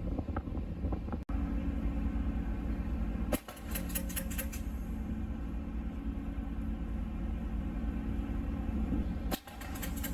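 Steady low engine drone with a constant hum, cut off briefly three times.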